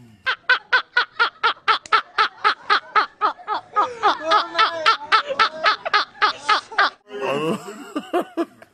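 A man laughing hard in rapid, evenly spaced bursts, about five a second, loosening into more uneven laughter partway through, with a short separate burst near the end.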